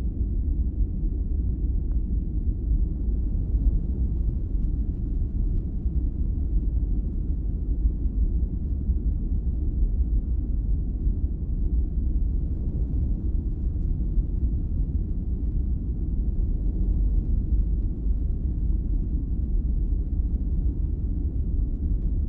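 Recorded lung auscultation sounds played back: a steady low rumble of breath noise as heard through a stethoscope.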